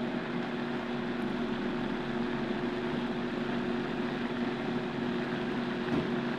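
Vitamix blender motor running steadily at its lowest setting, variable speed 1, churning a full jar of green juice. It is held at low speed to work the air bubbles out of the blend.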